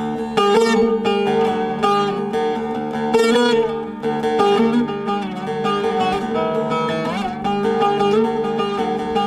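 Background music: a plucked string instrument playing a melody over a steady sustained drone.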